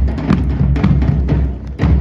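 Marching drums, bass drums among them, beaten by hand in a steady beat. Each stroke is a deep boom.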